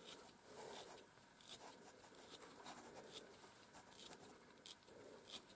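Stripping knife raking through a miniature schnauzer's wiry head coat, a series of faint, irregular scratchy rasps as dead hair is hand-stripped out.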